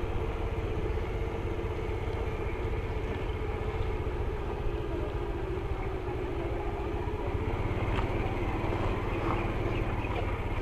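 Motorcycle engine running steadily with a constant low hum, heard from the rider's seat while riding.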